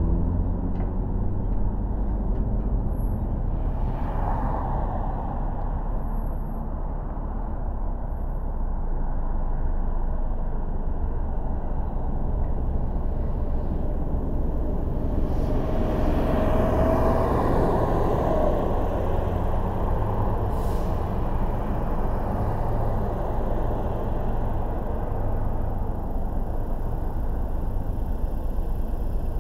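Steady road and engine rumble of a car driving through traffic, swelling briefly about four seconds in and again around the middle as other vehicles pass, with a short high squeal in the middle swell.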